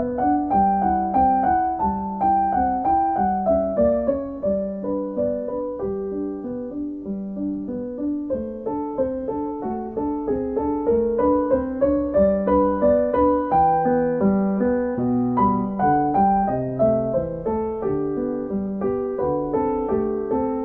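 Background solo piano music: a flowing run of notes, several a second, over repeating low notes.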